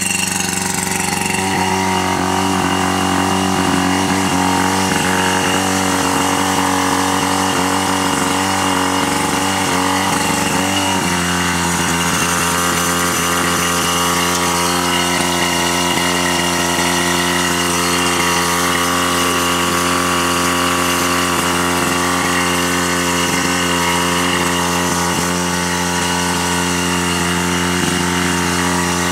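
Tohatsu V38CS portable fire pump's engine running steadily at a constant speed. Its tone wavers a little at first and settles about eleven seconds in.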